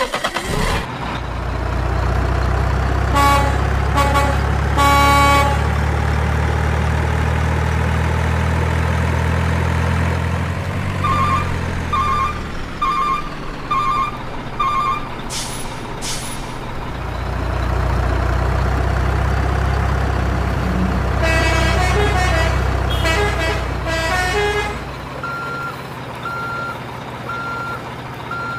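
Dubbed truck sound effects: a truck engine running steadily, three horn honks a few seconds in, then a run of beeps and two short air-brake hisses while the engine drops out. The engine returns with more horn blasts, and evenly spaced reversing beeps take over near the end.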